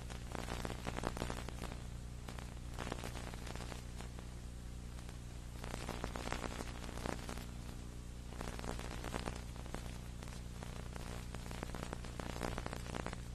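Dead audio track: steady low electrical hum and hiss with irregular bursts of crackle, and no crowd or commentary to be heard.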